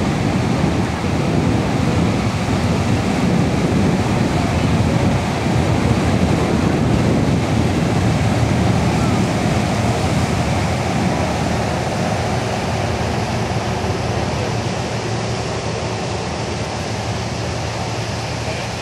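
Steady rushing, rumbling noise of wind buffeting the microphone outdoors, strongest in the low end, easing off a little in the second half.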